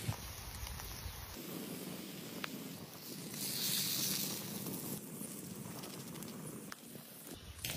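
Eggs and vegetables sizzling in a frying pan over a wood fire, with a louder hiss about three and a half seconds in and a few light clicks.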